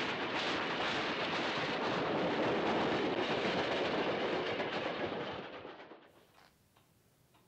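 Steam locomotive hauling a train, its exhaust chuffing over a dense mechanical noise, fading away about five to six seconds in. After that a clock ticks faintly.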